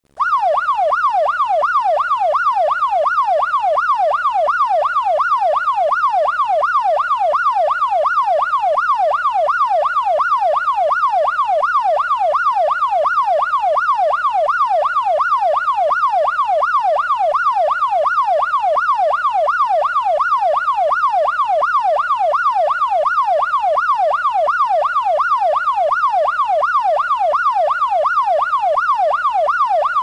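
Electronic police siren in a fast yelp, its pitch sweeping up and down about twice a second at a steady rate and level.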